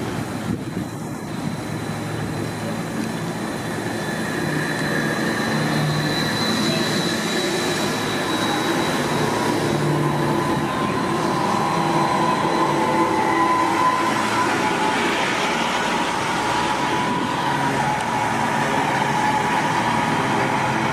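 Electric trolleybus drive whining as buses pull past, with steady high tones that drift slightly in pitch. It grows louder as the articulated bus passes close about ten seconds in.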